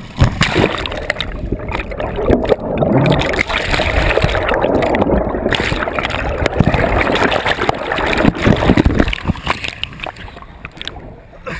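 Kayak capsizing into a fallen tree in river current: loud, continuous splashing and churning water with sharp jolts, partly heard from under the surface as muffled gurgling. It eases off near the end.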